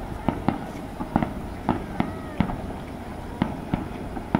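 Aerial fireworks shells bursting: a quick, irregular string of sharp bangs, about three a second.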